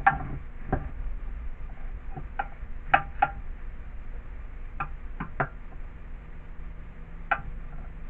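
Irregular sharp metallic clicks and knocks, about nine, as hand tools work at the crankcase side plate of an old air compressor during its tear-down.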